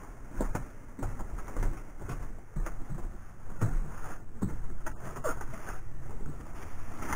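Scattered light knocks and rustling over a low rumble: footsteps, a plastic bag being handled and the camera being carried through a sailboat's wooden cabin.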